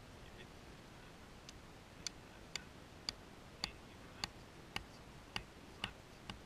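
A mallet striking a plastic tent peg, about nine sharp taps at an even pace of roughly two a second, starting about two seconds in, as the peg is driven into the ground.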